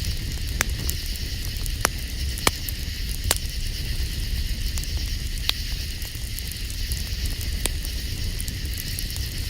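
Wood campfire crackling steadily, with several sharp, irregular pops from the burning wood.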